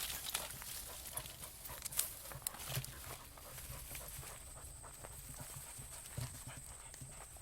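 A dog drinking at a river's edge, lapping water in a run of small irregular wet clicks and splashes. A thin steady high tone comes in about halfway through.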